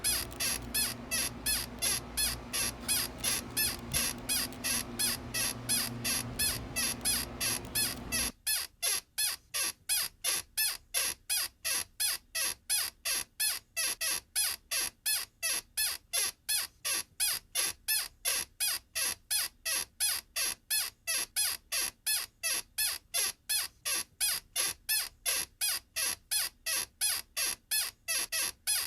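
A high-pitched squeak repeating at an even pace, about three times a second. A low background hum under it cuts off suddenly about eight seconds in.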